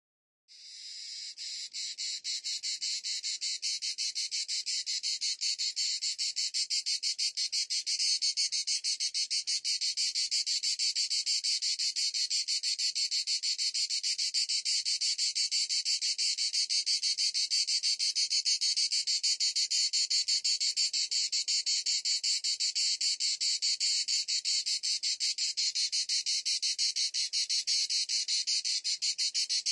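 Cicadas singing: a steady, high, rapidly pulsing buzz that fades in over the first few seconds and then holds.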